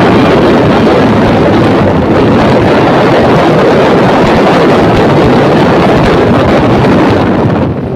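Loud, steady wind rush buffeting the microphone of a camera on a moving motorbike, with no engine note standing out; it eases near the end.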